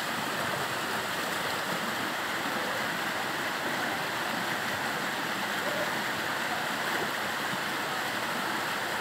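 Fast rocky stream rushing and splashing through white-water chutes between large boulders, a steady, unbroken rush of water.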